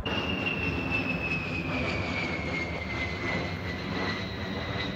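A-10 Warthog jet passing low overhead, its two rear-mounted TF34 turbofan engines making a steady rush with a high whine that slowly falls in pitch as it goes by.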